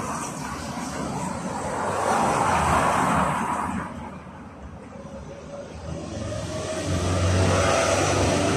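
Cars driving past a stationary tram, heard from inside the tram: one passes about two to three seconds in, and a second builds from about six seconds in and is at its loudest near the end.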